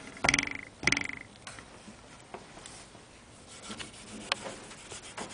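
Soft cloth rubbing along a clarinet body and its keywork. There are two loud, squeaky strokes in the first second and a half, then lighter rubbing with scattered small clicks.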